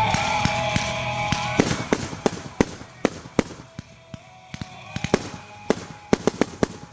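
Consumer fireworks going off in an irregular string of sharp cracks and pops. Background music drops away about a second and a half in and continues faintly under the cracks.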